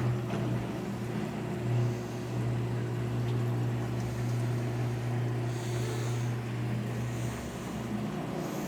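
Consul washing machine in its spin cycle with a load of double bed sheets: a steady motor hum.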